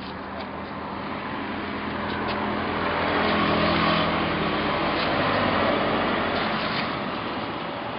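Roadster 883R motorcycle engine running, growing louder over the first few seconds and then easing off a little.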